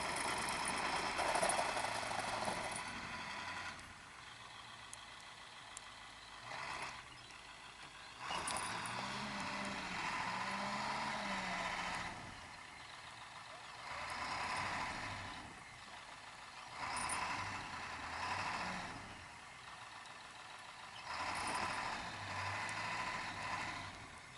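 UPS delivery truck's engine revving in repeated bursts of a few seconds each, its drive wheels spinning in deep snow as the stuck truck tries to work itself free.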